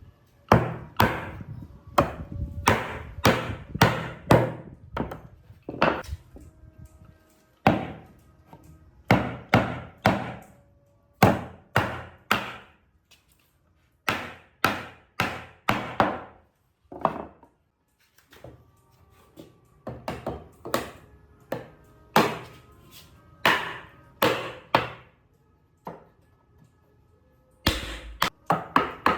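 Repeated heavy blows on wood, a hammer or mallet striking, about one or two a second in runs broken by short pauses.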